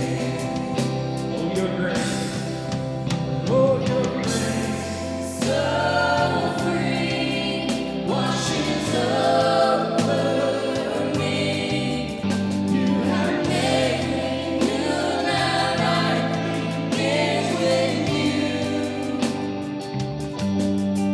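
Worship music: a band with voices singing together, over a steady bass line.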